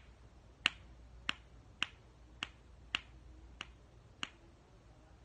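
Bubbles of a small red, white and blue pineapple pop-it fidget toy pressed one after another: seven sharp pops a little over half a second apart. The silicone bubbles are stiff and very hard to push.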